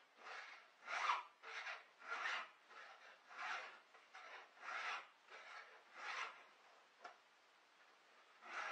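A hand file drawn over a chainsaw chain's cutters: about ten even file strokes, roughly one every two-thirds of a second, with a short pause near the end. The worn chain is being sharpened by hand.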